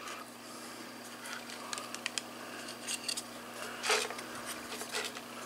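Light handling noise of a screen protector being held against a smartphone's screen and lined up: scattered small clicks, taps and rustles, with one louder tap about four seconds in.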